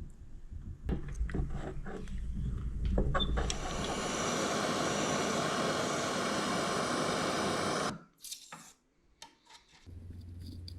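Knocks and rubbing on a workpiece, then a power tool running with a steady rasping noise for about four seconds that cuts off abruptly. A low hum starts near the end.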